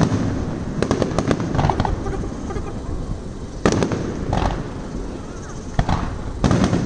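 Aerial fireworks shells bursting: several sharp booms at irregular intervals, with a continuous low rumble between them.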